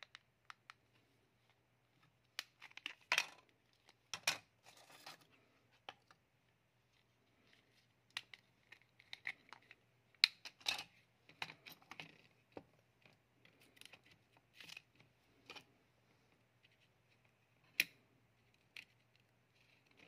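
Irregular plastic clicks, snaps and scrapes as an E-Tachi keypad phone's plastic housing is prised apart and its front cover and keypad membrane are lifted off and handled.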